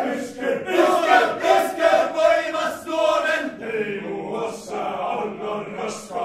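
Finnish male shouting choir shouting a song in unison, in short rhythmic shouted syllables about two or three a second. About halfway through the voices drop to a quieter, lower passage.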